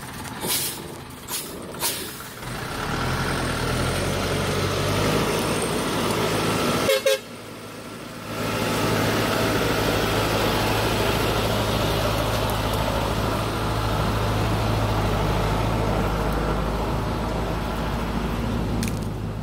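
Motorbike engine running steadily. A few sharp knocks come in the first two seconds, and the sound breaks off briefly about seven seconds in before carrying on.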